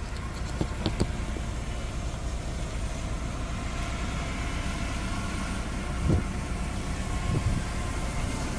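Farm machine engine running steadily, with a few sharp clicks about a second in and two low thumps later on.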